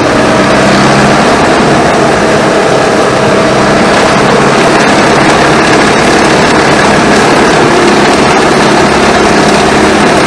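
Tractor engine running steadily and loud, close up, as the tractor drives with a hydraulic side-arm boom mower.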